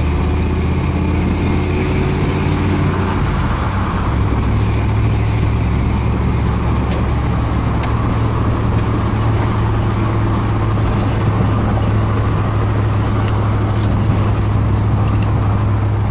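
1981 Dodge Ram D-150's 360 (5.9 L) V8 with headers and a Flowmaster two-chamber muffler, running steadily as the truck drives, heard from inside the cab. Its note changes about three seconds in, then holds a steady drone.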